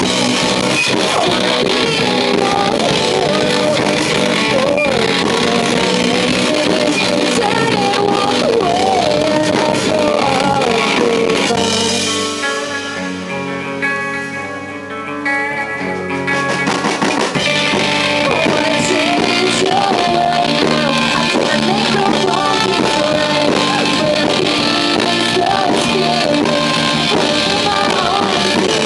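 Live rock band playing: female lead vocals over distorted electric guitar and drum kit. About twelve seconds in the band drops to a quieter, held passage for a few seconds, then comes back in at full volume.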